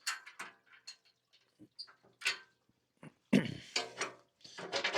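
Metal clicks, knocks and scrapes of hitch pins being worked out of a box blade on a compact tractor's three-point hitch by hand, scattered at first and turning into a busier metal rattle with a brief ring in the last two seconds.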